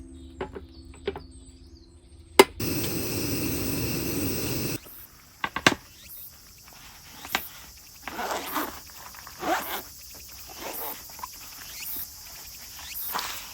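Knocks and scrapes of camp gear being handled, against a steady high-pitched insect chorus. About two seconds in, a sharp click is followed by a rushing noise that lasts about two seconds and cuts off suddenly.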